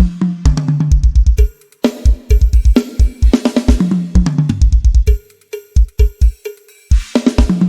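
Drum kit sound check from a SONAR project: quick runs of bass-drum hits, snare and tom fills that step down in pitch, hi-hat and cymbal crashes, played in short phrases with brief gaps between them.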